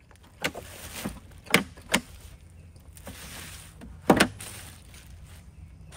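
Unboxing handling noise: cardboard and plastic wrapping rustling, with several sharp clicks and knocks, the loudest about four seconds in, as a portable power station is lifted out and its hinged carry handles are gripped and moved.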